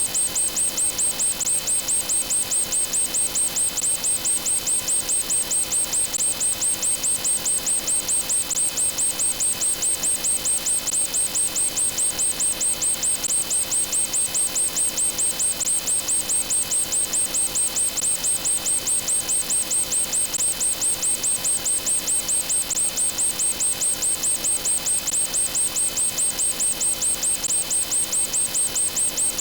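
A short electronic tick repeating steadily at about five per second, each tick the same, with a bright high edge. It marks the numbers stepping up.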